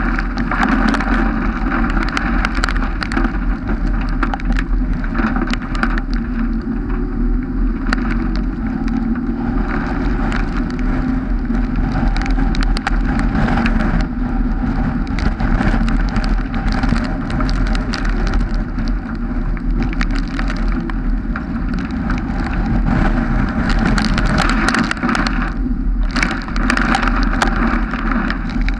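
Car driving on a wet road in rain: steady tyre and wind noise, with many small ticks of raindrops hitting the GoPro.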